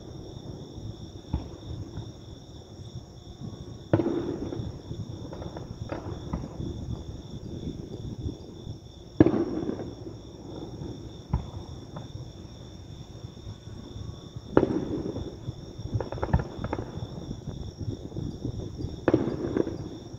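Aerial fireworks shells bursting in the distance: four deep booms about five seconds apart, each dying away slowly, with smaller cracks and pops in between.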